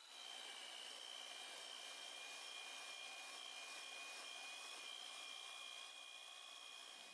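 A small electric motor whirring steadily and faintly, with a thin high whine over a hiss; it starts abruptly.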